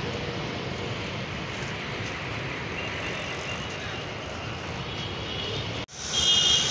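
Steady road traffic noise from passing cars, autorickshaws and scooters. It breaks off briefly near the end, then resumes with a few short high-pitched beeps.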